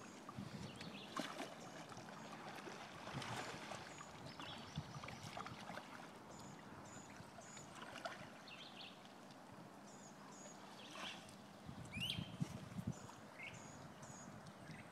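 Kayak paddle strokes splashing and dripping in shallow water, with birds chirping in short high notes in the background.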